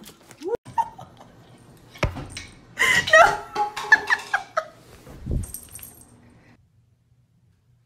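Clothes hangers clatter and rattle as a kitten drops through them, followed by a person laughing. A low thud comes near the end.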